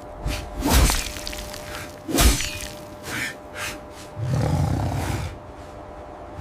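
Cinematic sound effects: two heavy impacts about a second and a half apart, each with a swishing rush, then a few lighter swishes and a low rumble about four seconds in.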